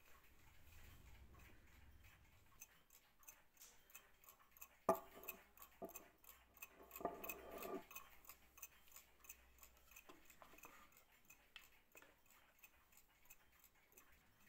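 Dugena mantel clock's mechanical movement ticking faintly and evenly, with a sharp knock about five seconds in and a brief louder noise around seven seconds.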